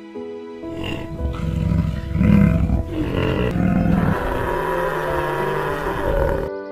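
A large animal giving a series of loud, rough, low calls in several swells, cutting off suddenly near the end, over steady background music.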